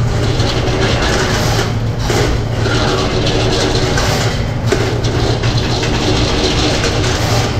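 Electric drain snake running, its spinning spring-steel cable rattling steadily as it is fed by hand into a clogged floor drain, over a constant low motor hum.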